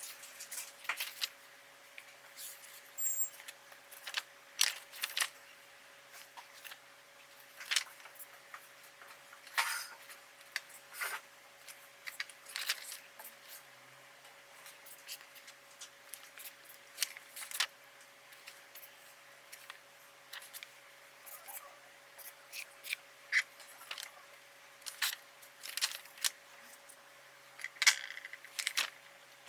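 Irregular light clicks and taps of small objects being handled, some in quick clusters, over a faint steady hum.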